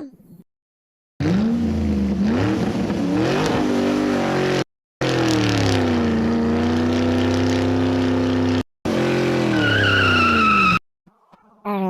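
Car engine revving sound effects in three bursts, the pitch rising and falling, each starting and stopping abruptly. A high tyre squeal comes in near the end of the third burst.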